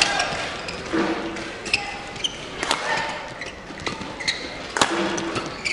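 Badminton rally: rackets strike the shuttlecock with a sharp crack roughly once a second, with short high squeaks of shoes on the court and a crowd murmuring in the background.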